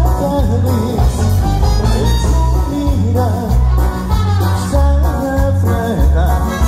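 Live Latin tropical band playing through a large PA system: heavy pulsing bass, electric guitars, keyboard and percussion, with a singer's voice over the top.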